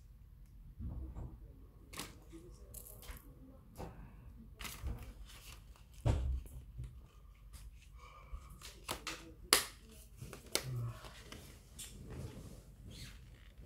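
Plastic parts of an air-conditioner deflector being handled: the perforated deflector sheet rustling and its small plastic clips clicking as they are fitted, with a few soft knocks. The sharpest click comes about two-thirds of the way through.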